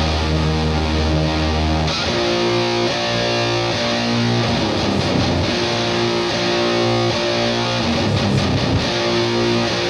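Instrumental band music led by electric guitar chords over bass guitar, with a deep low note held for about the first two seconds before the chords change.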